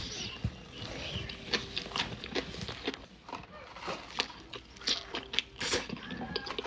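Close-miked chewing with irregular wet lip smacks and clicks, a person eating spicy ramen spring rolls with their mouth open.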